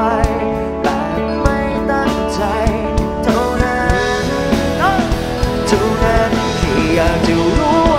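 Live pop-rock band playing a song on drums, electric guitar, bass and keyboard, with a lead line sliding up and down in pitch over a steady drum beat.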